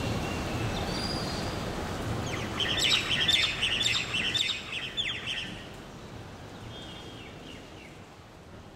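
A flurry of bird chirps for about three seconds in the middle, over a steady hiss of heavy rain.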